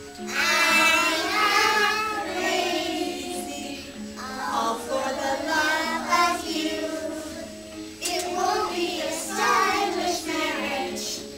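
A small group of young children singing a song together, in phrases about four seconds long.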